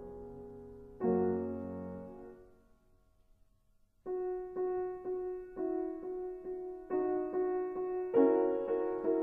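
Slow solo piano music: a chord struck about a second in and left to die away, a brief near-silent pause, then a gentle line of single notes about two a second from about four seconds in, growing louder near the end.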